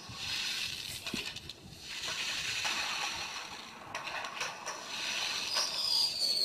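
Fireworks audio from a video playing on a smartphone: steady hissing with a few sharp crackles, and a whistle falling in pitch near the end.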